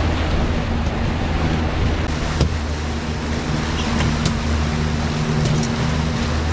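Suzuki 300 outboard motor running steadily with the boat under way, water rushing in its wake, and a few brief clicks.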